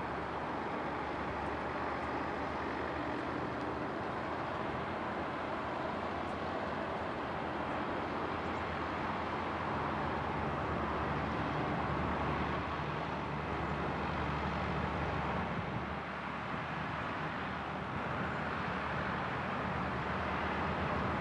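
Diesel tractor engines running as a line of tractors drives past, a steady engine drone that grows a little louder around the middle and dips briefly about two-thirds of the way through.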